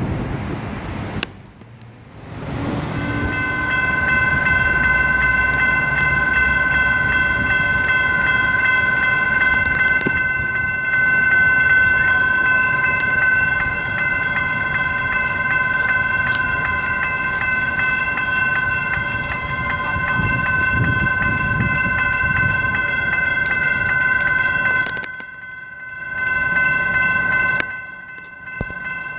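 Railroad crossing's electronic bells ringing steadily with a bright, multi-tone electronic ring over passing road traffic. The sound breaks off briefly twice near the end.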